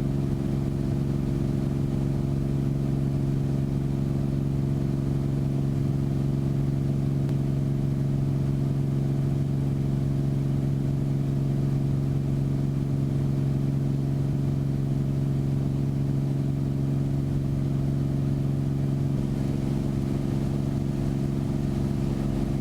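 Beechcraft Bonanza's piston engine and propeller running steadily at takeoff or climb power, a constant drone with no change in pitch.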